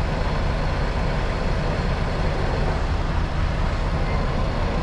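Semi-truck diesel engine idling steadily, heard from the cab with the window open.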